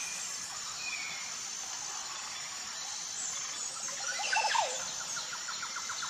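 Forest ambience: a steady high insect drone under scattered short bird chirps. About four seconds in comes a brief flurry of bird calls, the loudest part, and near the end a fast, even trill of repeated notes.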